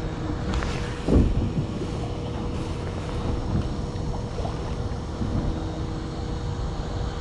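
Steady wind and water noise on a boat at sea, with a faint steady hum and a single louder bump about a second in.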